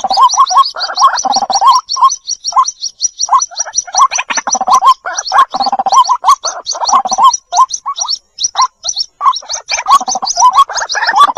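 White-breasted waterhen chicks calling for their mother: a fast string of high peeps, about eight a second, over repeated lower gurgling calls.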